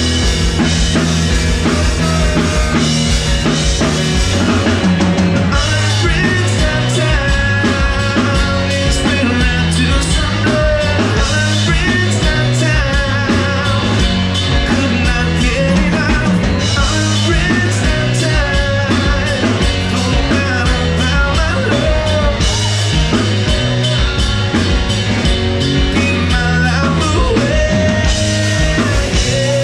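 Live rock band playing amplified electric guitars and drums, with singing.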